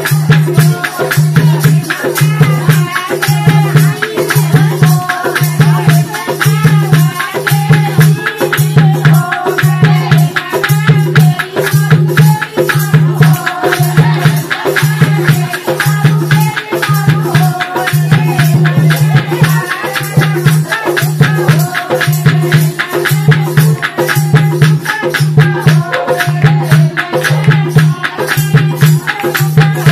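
Haryanvi folk dance music: a steady low beat about once a second under dense, fast jingling rattle percussion, with a singing voice carrying the tune.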